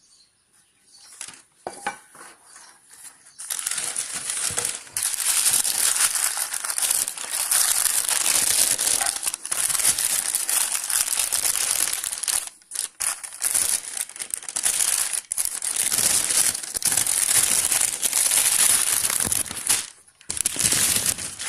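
Packaging being crumpled and crinkled by hand, with a few light handling sounds at first, then dense crackling from about three seconds in that runs almost unbroken with a few short pauses, as a cookware item is unwrapped.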